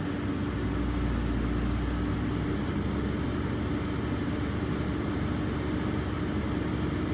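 Steady machine hum: a low drone with one constant tone above it, unchanging in level.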